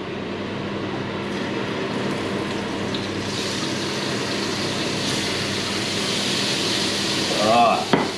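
Razor clams sizzling in hot olive oil in a frying pan, the sizzle rising about three seconds in as they go into the pan, over a steady hum.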